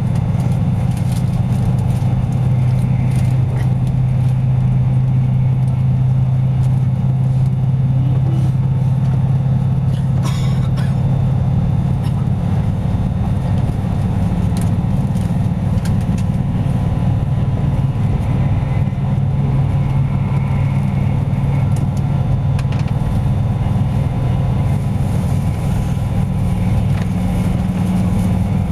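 Interior noise of a Joetsu Shinkansen car under way: a steady, loud low rumble of the train running on the line. One brief click about ten seconds in.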